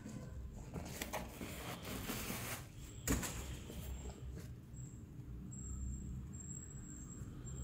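Rustling and crinkling of paper packing as a sneaker is handled and the stuffing is pulled from it, with a sharp knock about three seconds in. A faint steady high-pitched whine runs under it from about halfway.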